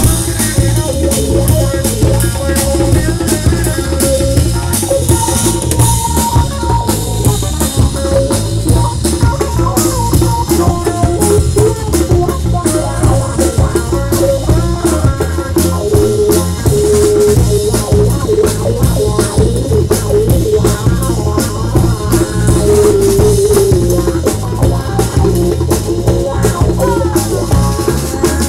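Live band playing an instrumental passage: a drum kit keeps a steady beat under electric bass and electric guitar, with held melodic notes over the top.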